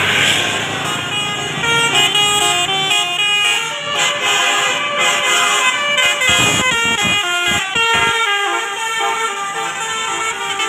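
A bus's Basuri telolet horn playing a melody, its tones stepping quickly from one pitch to another. A few low rumbles come in about six to eight seconds in.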